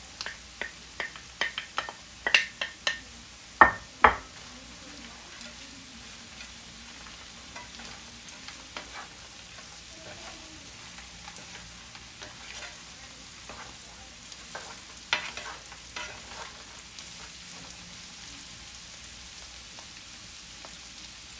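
Onion and frozen mixed vegetables frying in oil in a pan while a utensil stirs them, knocking and scraping against the pan. A run of sharp clacks fills the first few seconds, the loudest about four seconds in; after that a steady low sizzle with occasional taps.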